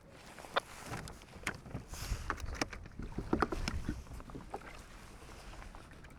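Water slapping against a kayak's hull on a choppy sea, with scattered knocks and clicks of handling on the boat, bunched together around the middle.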